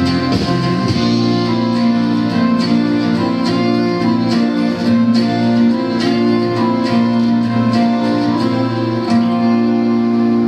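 Song with plucked guitar over held, bowed string notes, playing steadily.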